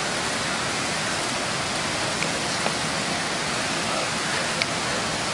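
Steady rushing of a fast mountain stream flowing over rocks, an even hiss of water with a few faint clicks.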